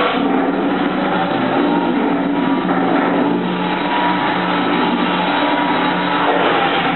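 Vertical ribbon mixer running empty, its ribbon agitator turned by an electric motor through a reduction gearbox: a steady mechanical drone with a low hum and a fainter whine that drifts slightly in pitch.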